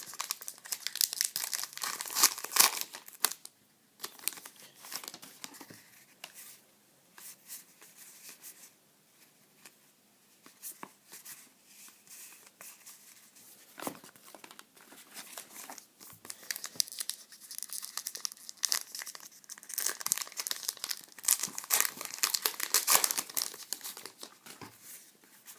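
Trading-card pack wrappers being torn open and crinkled, in two bouts: one at the start and another from about two-thirds of the way in. Between them come softer rustles and ticks of cards being handled.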